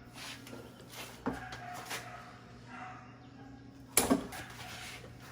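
A few light knocks, then two sharp, loud knocks in quick succession about four seconds in, over a steady low hum.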